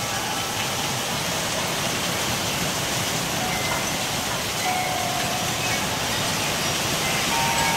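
Steady noise of hurricane winds and driving rain. A few short wind-chime tones ring out briefly in the middle and again near the end.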